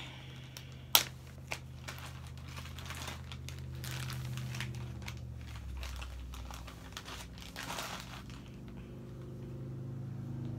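A clear plastic packaging bag crinkling and crackling as it is handled and opened, with a sharp click about a second in.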